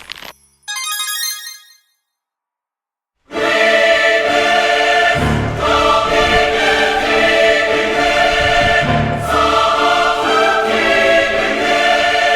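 Background music: a short chiming phrase, a second and a half of silence, then loud choral music with sustained voices starts about three seconds in.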